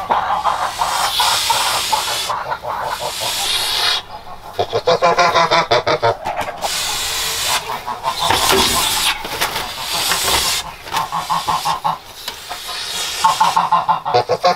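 A nesting domestic white goose hissing in long breaths, broken several times by harsh honking calls: a threat display against being disturbed on her nest.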